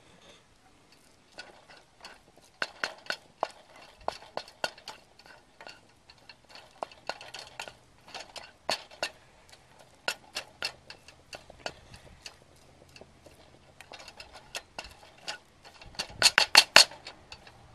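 A utensil scraping and tapping against a metal pot while stirring scrambled eggs: quick, irregular scrapes and clicks, with a rapid burst of louder scraping near the end.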